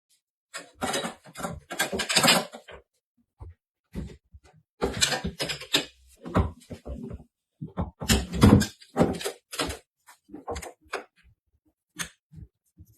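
Irregular knocks, clanks and scrapes of hand work on copper plumbing pipe and fittings, coming in short clusters with gaps between.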